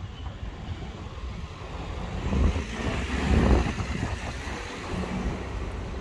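A car passing on the street, swelling to a peak about three seconds in and fading away, over a steady low rumble of wind on the microphone.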